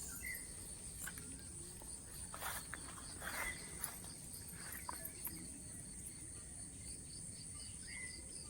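Insects, crickets among them, calling steadily outdoors: a continuous high-pitched whine with an evenly repeating chirp over it, with a few faint rustles.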